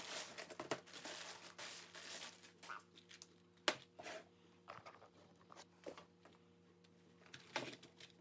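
Plastic shopping bag crinkling and rustling as it is handled and pulled open, followed by a few light knocks and rustles of tools being unwrapped from a cloth.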